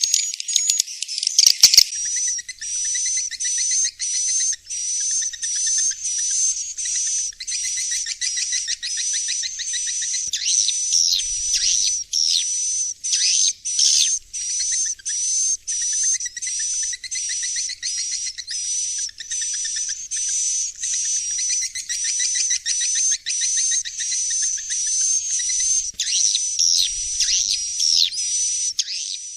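Swiftlet roosting call (suara inap) recording: rapid high-pitched swiftlet twittering chirps repeating about twice a second, over a steady high whistling tone. A sharp click about a second and a half in.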